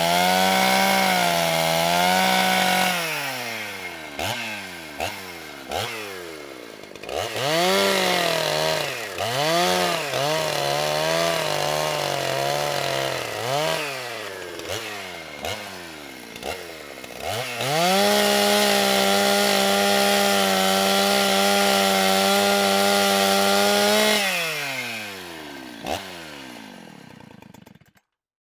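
Chainsaw running at speed, then dropping and revved in a string of short blips. It revs up again and holds steady at full speed for about six seconds, then winds down and stops near the end.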